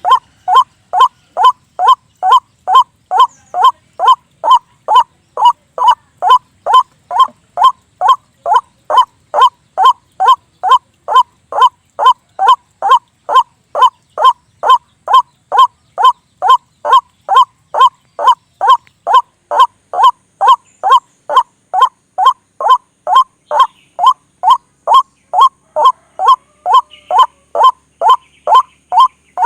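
White-breasted waterhen (ruak-ruak) giving its harsh repeated call, one short note about every half second in a steady, unbroken run. This is a recorded lure call used to draw the bird to a snare.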